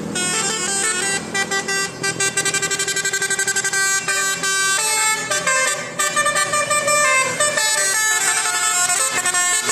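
Bus-mounted Basuri telolet horn, a multi-tone musical air horn, playing a loud tune of stepping notes. It includes a fast stuttering run of repeated notes from about two to four seconds in.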